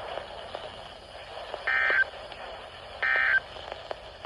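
Emergency Alert System end-of-message data bursts over NOAA Weather Radio: two short, identical buzzy digital tone bursts about a second apart, over faint radio hiss. They signal that the warning message has ended.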